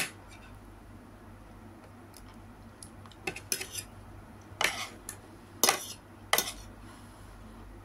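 Metal spoon and fork scraping and clinking against a plate while scooping rice and greens: several sharp clinks, most of them in the second half.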